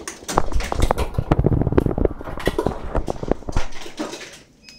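A turtle's hard shell being pushed across a tile floor, scraping and knocking in a quick, irregular run of clatters for about four seconds before it stops.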